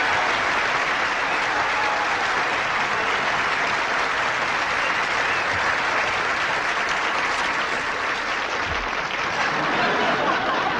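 Studio audience applauding steadily, welcoming a guest introduced on stage.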